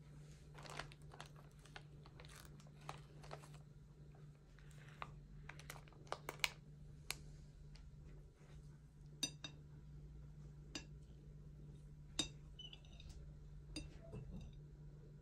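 Faint handling sounds: light taps, clicks and paper crinkling as a glazed cake is shifted off baking parchment onto a glass cake stand. A few sharper clicks come later, the loudest about six, nine and twelve seconds in. A steady low hum runs underneath.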